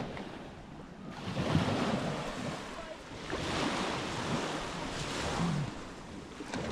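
Baltic Sea waves washing onto a sandy beach, the surf noise swelling and falling back several times, with wind buffeting the microphone.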